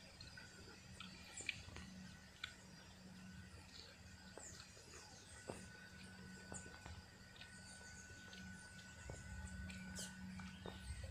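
Faint woodland ambience: scattered short high bird chirps that drop in pitch, a few small clicks, and a thin steady high tone lasting about five seconds midway.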